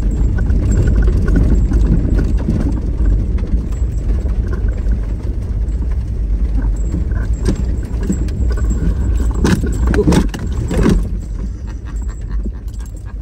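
A vehicle driving over rough ground: a steady low rumble with loose things rattling, and a few sharper knocks between about seven and eleven seconds in.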